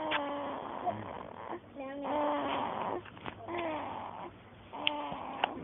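A sleeping baby snoring: about four breaths in a row, each with a high, wavering tone, and two small clicks near the end.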